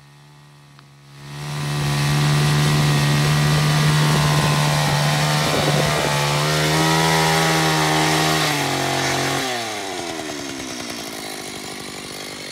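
Stihl BT 360 earth drill's two-stroke petrol engine opened up about a second in, running loud and steady as the auger bores into the compacted clay and sand of the pitch. About nine and a half seconds in, the throttle is released and the engine falls in pitch, running on more quietly as the auger is lifted out of the hole.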